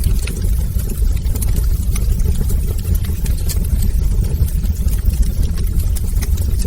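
Wood fire burning in a fireplace: a steady low rumble from the flames with sparse, faint crackles and pops scattered throughout.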